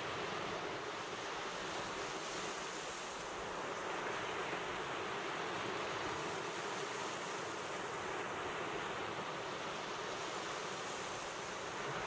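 Small waves breaking and washing up a sandy beach: a steady surf rush that swells slightly now and then.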